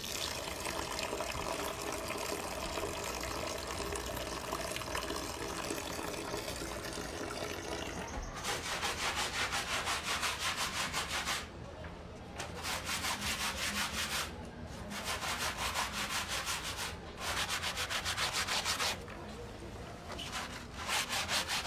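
Soapy clothes being scrubbed by hand on the ribbed washboard of a laundry sink. From about eight seconds in, rapid rhythmic scrubbing strokes come in several runs of one to three seconds, with short pauses between them.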